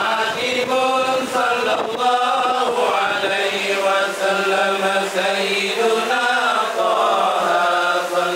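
Arabic Islamic devotional chanting: long, drawn-out melodic vocal lines that glide up and down without a break.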